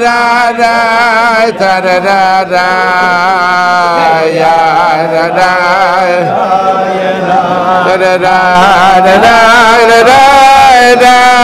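A group of men singing a slow, chant-like melody with long held notes that glide from pitch to pitch.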